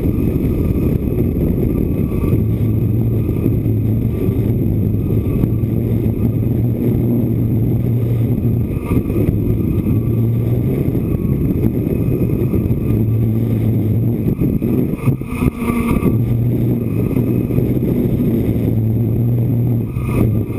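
DJI F550 hexacopter's six electric motors and propellers buzzing, heard close up from on board, with a low steady hum that drops out and returns several times as the craft manoeuvres. Wind rumbles heavily on the microphone throughout.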